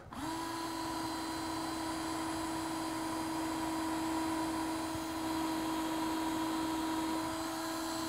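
DeWalt cordless drill running at a steady speed with a long 1/4-inch bit, a constant whine that doesn't change pitch. The bit is down inside a prosthetic socket and is too short to reach the lock.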